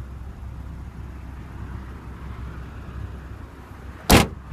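The trunk lid of a 2014 Lexus IS350 sedan slammed shut, one loud thud about four seconds in, over a low steady rumble.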